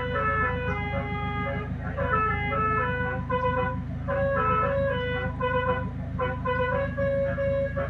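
Basuri telolet horn sounding through two horn loudspeakers, playing a melody of held and quick stepped notes over a steady low pulsing hum.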